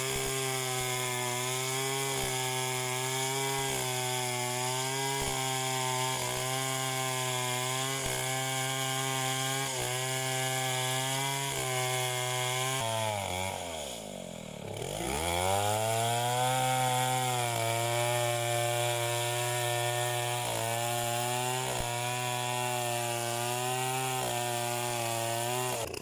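Chainsaw engine running at high revs, its pitch wavering slightly about every second and a half. About halfway through, the engine slows sharply almost to idle, then revs back up to full speed.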